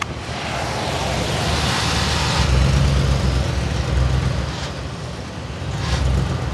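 Car driving, with a low rumble of road and engine noise. A rush of hiss builds over the first two seconds and then falls away, while the rumble swells from about halfway through.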